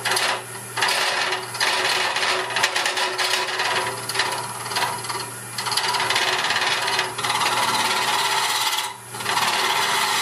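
Round carbide cutter on a boring bar scraping the inside of a mesquite hollow vessel spinning on a wood lathe, in a run of cuts broken by short pauses, over the steady hum of the lathe. It is cleaning out the dimple left by the drill bit at the vessel's bottom.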